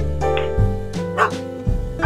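Piano background music, with one short dog bark about a second in.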